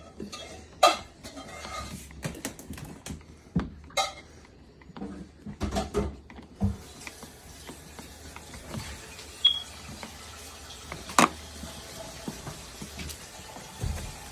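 Parts of a Ridgid wet/dry shop vacuum being handled and fitted together during assembly: scattered knocks and clicks of hard parts, with a sharp click about a second in and another about eleven seconds in.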